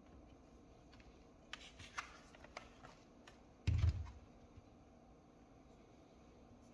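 A run of light, sharp clicks and taps, then a single louder, dull thump a little later.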